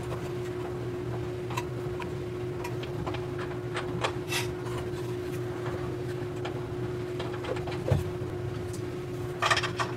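A few light clicks and taps from flange nuts being handled and started by hand onto the brake booster's mounting studs behind the dashboard, over a steady hum.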